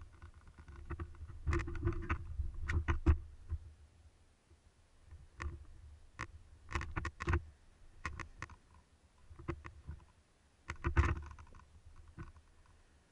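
Scattered clicks and muffled low knocks of footsteps on shore rocks and the handling of a speargun and diving gear, coming in short clusters with quiet gaps between.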